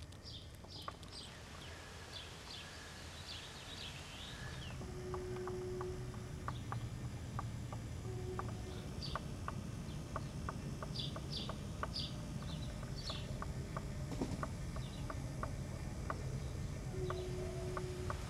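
Birds chirping in short runs of high, falling notes, two clusters of them, over a steady low outdoor rumble.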